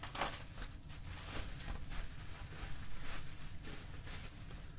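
Bubble wrap crinkling and rustling as a wrapped item is handled, with a sharper crackle just after the start and irregular crackles after that.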